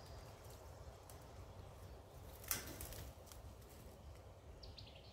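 Quiet outdoor ambience with a low steady rumble, broken by one sharp knock about two and a half seconds in; a few faint bird chirps come in near the end.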